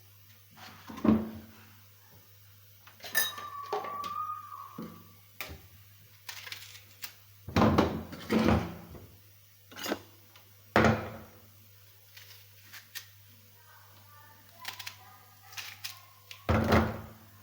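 Kitchen handling noises: a string of knocks and clunks as dishes and utensils are moved and set down, with a short squeak about three seconds in.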